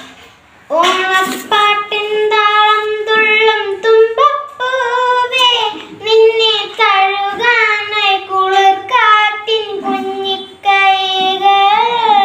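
A boy singing solo without accompaniment, in held, pitched notes that start about a second in.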